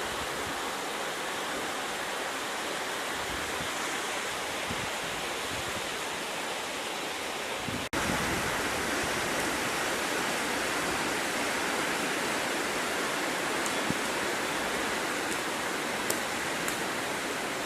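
Heavy rain pouring steadily in a storm. It cuts out for an instant about eight seconds in and comes back a little louder, with a few faint ticks near the end.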